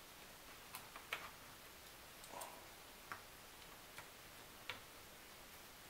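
Faint, scattered small clicks and taps of metal tweezers and thin laser-cut wood pieces being handled and pressed into place, about six in all, the sharpest a little over a second in.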